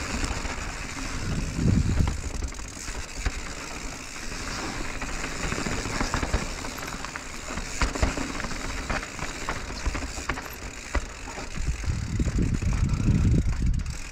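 Mountain bike rolling fast down a dirt and stony trail: the tyres crunch over the ground and the bike rattles with many small clicks and knocks. A heavier rumble comes about two seconds in and again near the end.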